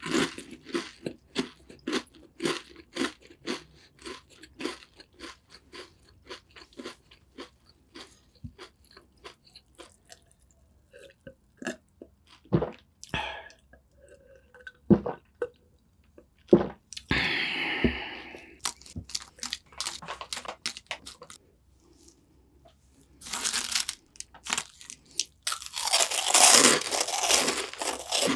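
Mouth sounds of someone eating crunchy cookies: a quick, steady run of crunching chews, a quieter stretch in the middle with a few swallows of water from a glass, then a loud crisp bite and crunching near the end.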